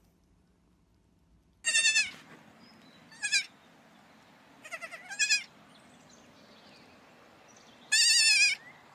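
Baby goats bleating: short, high, quavering bleats in four bouts, the longest near the end.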